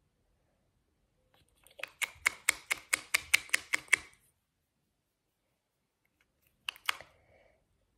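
Sharp clicks from handling a clear plastic lip gloss tube: a fast run of about five taps a second for two seconds, then two more clicks near the end.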